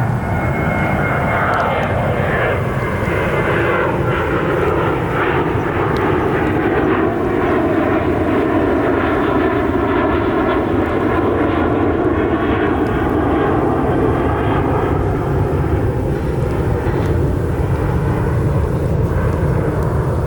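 Jet airliner passing low overhead: a loud, steady rush of engine noise whose tones slowly slide in pitch as it goes by, with a few faint crackles from a campfire.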